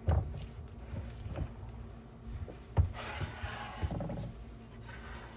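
Kitchen handling sounds as a silicone spatula is worked into a glass baking dish of cheese-topped baked potatoes on a wooden board: a few knocks, the sharpest a little under three seconds in, then a second or so of scraping and rubbing as a portion is cut and scooped.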